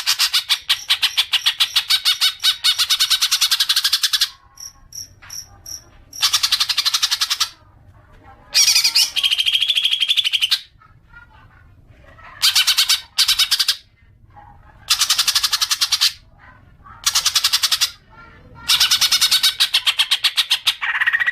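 Cucak ijo (green leafbird) chattering its 'ngekek' song: long runs of very rapid, repeated notes in bursts of one to four seconds with short pauses between them. A few short, pure whistled notes come about five seconds in.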